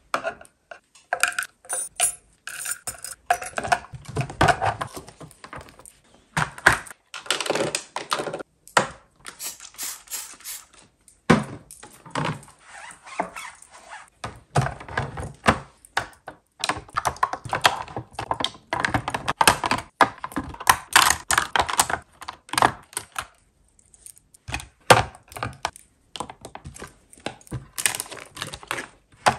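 Clear plastic drawer-organiser trays and small cosmetic items being set down and moved around in a drawer: a busy, irregular run of light clicks, knocks and clatters.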